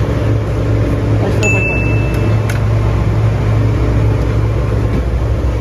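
Steady low drone of a ship's running machinery. About a second and a half in, a thin high beep sounds for about a second.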